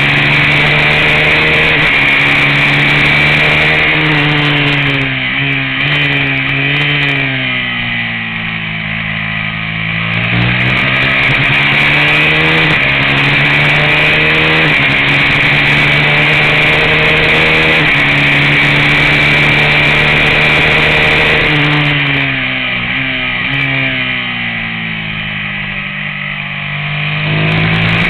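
Race motorcycle engine at high revs, heard onboard. It winds up through the gears, then drops in pitch in steps about five seconds in as the rider shuts off and downshifts for a corner, and climbs again from about ten seconds in. The same happens again around twenty-two seconds in, with the engine pulling hard again near the end, over a steady rush of wind noise.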